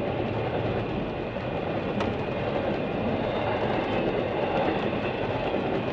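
Steady road and tyre noise inside a moving car on a rain-wet road, a low rumble with a hiss over it. A single sharp click about two seconds in.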